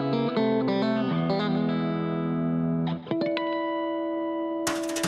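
Background music led by guitar. About three seconds in a chord is held, and near the end a fuller, busier passage begins.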